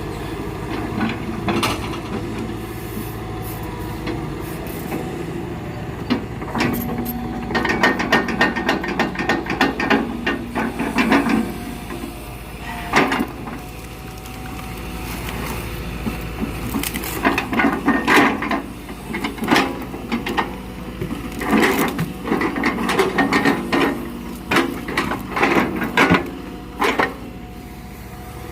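Excavator engine running steadily while rubberwood logs knock and clatter against each other in several bursts of sharp wooden impacts as they are lifted and moved.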